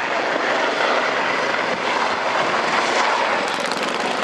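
Military helicopter turbine engines and rotors running steadily, a continuous loud aircraft noise.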